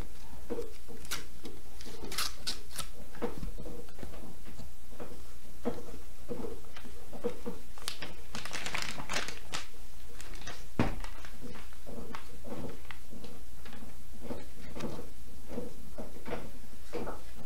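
Paper rustling and crinkling as envelopes, letters and a large card are opened and handled, with scattered light taps and clicks and one sharper knock about eleven seconds in, over a steady low hum.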